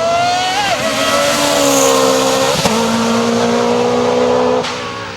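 Lancia Delta S4 rally car's turbocharged engine running hard under load, its pitch dropping at gear changes about a second in and again near the middle with a sharp crack, then easing off near the end.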